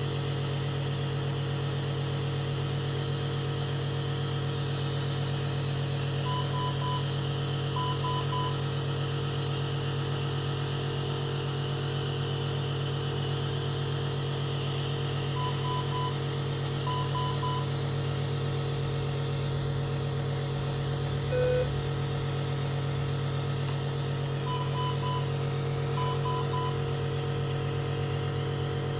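Steady low motor hum of a nebulizer compressor. Over it, a medical monitor alarm sounds in groups of three short high beeps, coming in pairs and repeating every several seconds. A single lower beep sounds about three-quarters of the way through.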